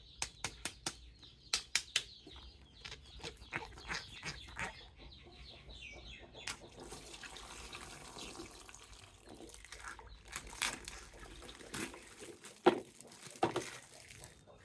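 Water splashing and running while a plastic toy is washed, with many sharp clicks and knocks of the plastic being handled, and a steadier run of water noise in the middle.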